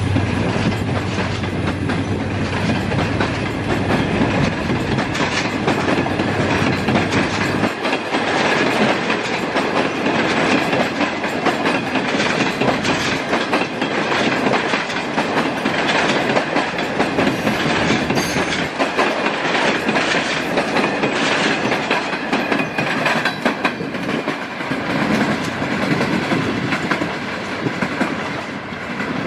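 Passenger coaches of a diesel-hauled train rolling past, their wheels clattering steadily over rail joints and points. A low hum fades out about eight seconds in, and the clatter eases slightly near the end as the last coaches draw away.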